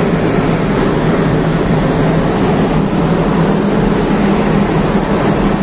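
Steady low drone of marine diesel engines from a harbour tug working alongside a departing cargo ship, with a steady rushing hiss over it.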